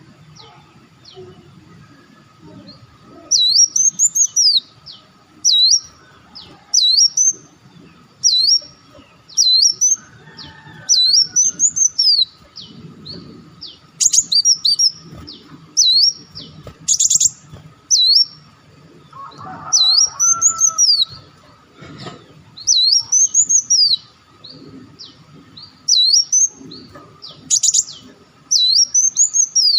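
A sunbird (burung madu wulung, or muncang) calling over and over: short, high, sweeping notes that rise and fall, repeated every second or two, with a few quick buzzy trills among them.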